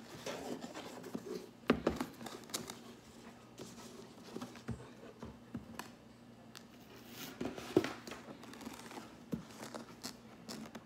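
Handling noise from a ribbon being untied and pulled off a cardboard gift box: light rustling with scattered taps and knocks, two of them sharper about two and eight seconds in.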